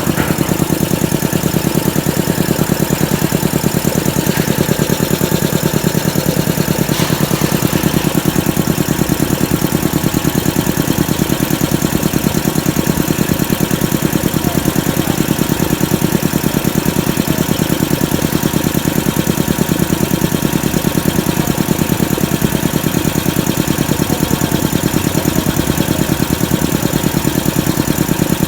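Air compressor driven by an 11 kW electric motor, running steadily with a fast, even pulse.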